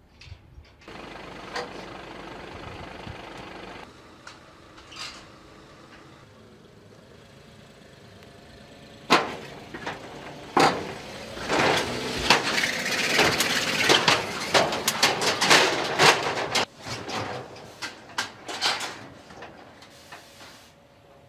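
Smart Fortwo cars being loaded onto a car-transporter truck: steady vehicle noise, then from about nine seconds in a loud, irregular run of metallic clanks and knocks as wheels roll over the transporter's steel ramps and deck plates.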